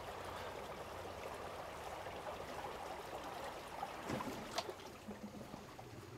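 Water trickling and lapping around the GoSun Elcat Splash inflatable boat as it runs on its electric outboard. The motor is quiet enough that the water is the main sound. There are a couple of light knocks about four seconds in.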